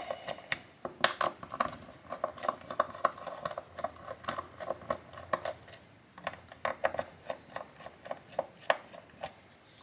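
Small screwdriver working the screws of a screw terminal block, giving a run of light, irregular metallic clicks and scrapes as the screws are loosened.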